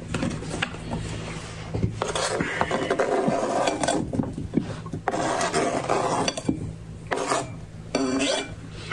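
Kitchen knife scraping sliced banana off a plastic cutting board into a bowl: repeated rasping strokes of the blade across the plastic, with light clicks and knocks of knife and board.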